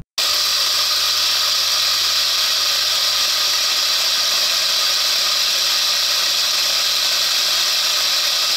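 Countertop blender with a glass jar running at a steady high speed, grinding small triboluminescent crystals into fine powder: a loud, even whirring hiss with a faint low motor hum. It comes in suddenly at full speed just after the start.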